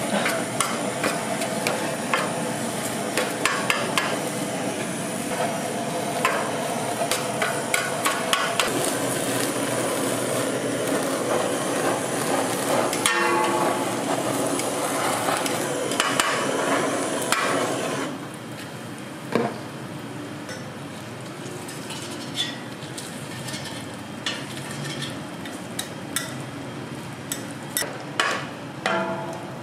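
Butane blowtorch hissing while metal tongs clack and scrape against a stainless steel tray, tossing chopped beef, with meat sizzling under the flame. About eighteen seconds in the loud hiss stops, leaving a quieter griddle sizzle and scattered clicks of tongs.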